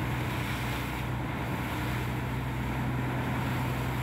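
Fishing boat under way: its engine runs with a steady low hum, under the rush of water from the wake and wind on the microphone.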